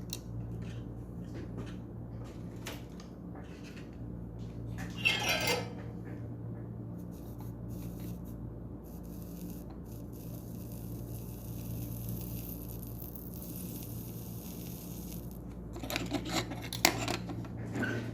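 Small metal tools scraping and clicking on an electronics repair bench during hand soldering work, over a steady low electrical hum. There is a sharp scrape about five seconds in, a high hiss for about six seconds in the middle, and a cluster of clicks near the end.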